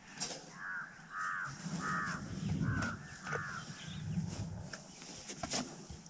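A crow cawing five times in quick succession, with low rumbling thumps underneath in the middle.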